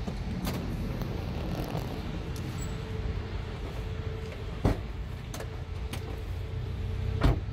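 Minivan doors shutting: the sliding side door thuds shut about halfway through, and the driver's door slams near the end, the louder of the two. A few small clicks of handles and keys and a steady low rumble run underneath.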